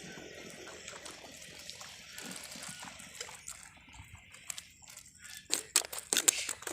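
Water sloshing and trickling, then a quick run of sharp splashes near the end.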